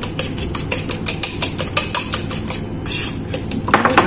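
Pancake batter being beaten in a bowl with a utensil: quick clinking strokes against the bowl, about six a second.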